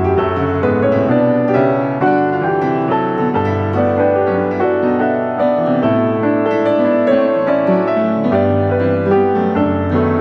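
Instrumental background music: a keyboard melody of quick, even notes over a bass line that changes every couple of seconds.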